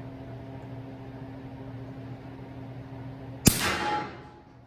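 A single suppressed rifle shot from an 8-inch bolt-action 300 Blackout firing 220-grain subsonic rounds through a Q Thunder Chicken suppressor: one sharp report about three and a half seconds in that rings away over about half a second. A steady low hum runs underneath.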